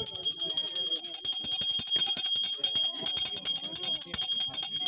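Puja hand bell rung rapidly and without pause, a steady high metallic ringing with many quick strikes, as sounded during a camphor aarti.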